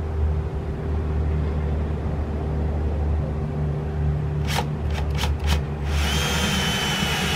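Cordless drill boring a hole through a sailboat's fiberglass transom: a steady low motor hum, a few sharp clicks about four and a half seconds in, then a louder high whine with hiss from about six seconds in.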